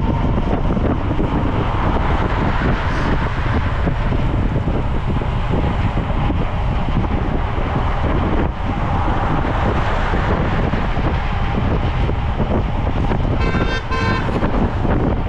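Steady wind buffeting the camera microphone of a road bike rolling at speed. Near the end a short pitched tone like a horn toot sounds over it.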